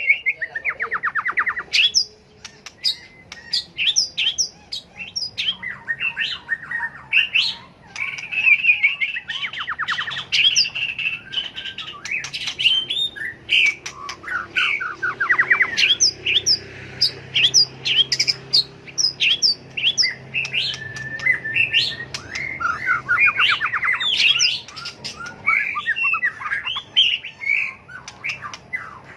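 White-rumped shama singing, a varied song of whistled phrases and rapid trills, with sharp clicks between the phrases.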